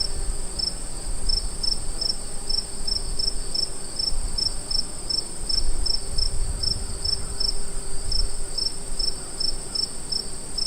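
Crickets chirping: a continuous high-pitched trill with short chirps repeating about three times a second over it.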